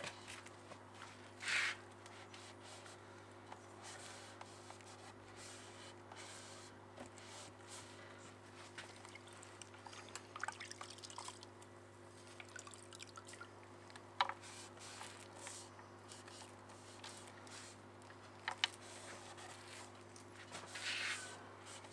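Quiet handling of a stripped wooden drawer over a steady low hum, with a few soft rubbing and scraping strokes of a hand abrasive against the wood and two sharp clicks partway through; the longest rub comes near the end.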